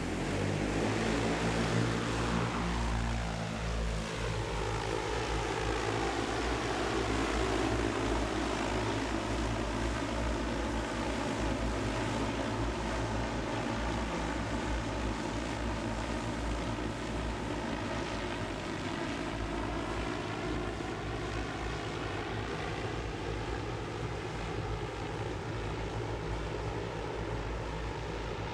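Electric multirotor VoloDrone heavy-lift drone's 18 rotors whirring in a steady, many-toned hum as it lifts off and flies. The sound comes up sharply at the start, and bands in its pitch sweep down over the first few seconds before settling.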